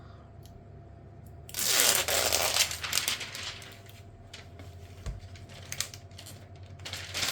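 Handling noise: a rustling burst about a second and a half in that lasts about a second and a half, followed by scattered light clicks.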